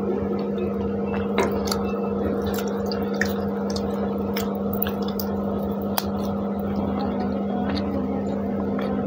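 Eating by hand: fingers squishing and mixing chicken pulao, with chewing and scattered small wet clicks. A steady low hum runs underneath.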